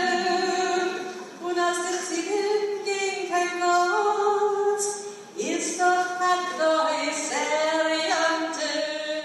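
Several voices singing a cappella in harmony, women's voices to the fore, on long held notes.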